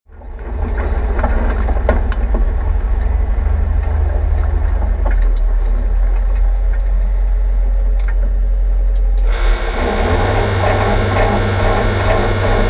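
Mitsubishi Lancer Evolution X rally car's turbocharged four-cylinder engine running, heard from inside the stripped, caged cabin: a low steady drone with scattered rattles, then about nine seconds in the revs rise and the sound gets louder and harsher.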